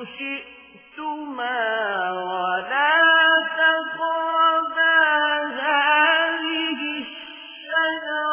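Quran recitation: a single voice chanting melodically in long held notes. After a short pause for breath near the start, the voice sinks slowly in pitch and rises again, then holds steady notes with small ornamental turns.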